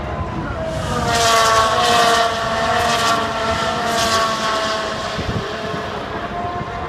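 Formula 1 cars' 1.6-litre turbocharged V6 engines running on the circuit. The high engine note swells about a second in, eases off around the fifth second, and drifts slowly down in pitch.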